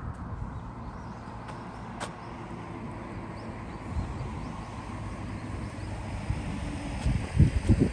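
Roadside outdoor ambience: a steady low rumble and hiss, with a few faint clicks and a cluster of loud low thumps near the end.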